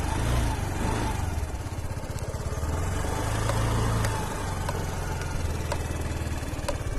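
A 2014 Yamaha Ray scooter's small single-cylinder four-stroke engine idling steadily, a little louder for a moment around three to four seconds in.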